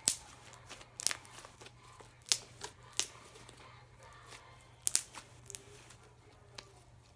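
Slime being squeezed and poked in the hands, giving a series of sharp, irregular crunches and pops, about eight of them, as trapped air is pressed out.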